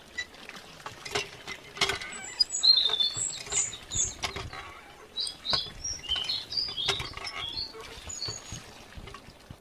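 Miniature model hand pump being worked: irregular light clicks and taps from its lever and joints as a thin stream of water trickles into the pool. A run of short high chirps comes through the middle.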